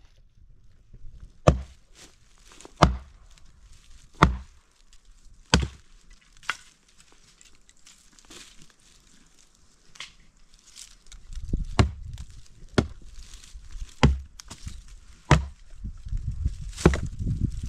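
Wood being chopped by hand with a bladed tool: about ten sharp chops at a slow, even pace, roughly one every second and a half, with a pause of a few seconds midway. A low rumble comes in for the second half.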